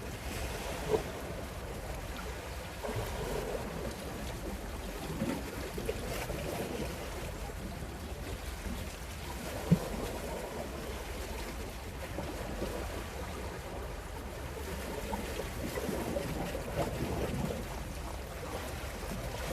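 Wind on the microphone over sea water washing and lapping, with a sharp knock about a second in and another near the middle.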